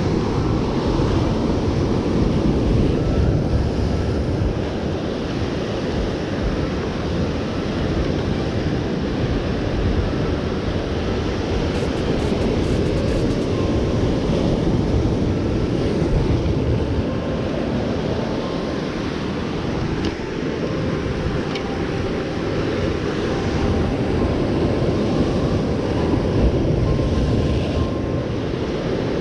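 Ocean surf breaking and washing over a lava-rock shoreline, a steady rush, with wind rumbling on the microphone.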